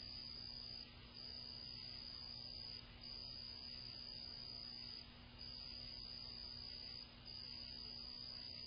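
Insect trilling at night: one steady high-pitched trill that breaks off briefly about every two seconds, with a faint low hum underneath.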